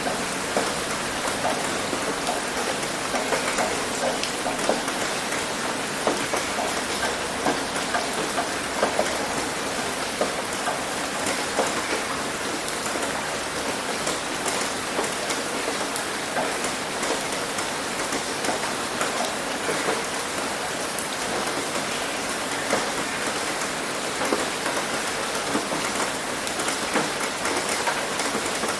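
Steady heavy rain hitting a roof, an even hiss dense with small scattered drop impacts.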